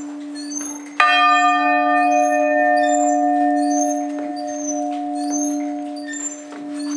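Church bells ringing in the belfry. A loud bell strike about a second in sets off a long ringing decay over a steady low hum from the bells.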